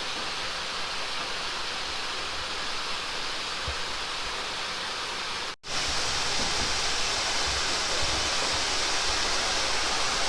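Steady rushing noise. It cuts out for an instant a little over halfway through and comes back slightly louder, with some low rumbling.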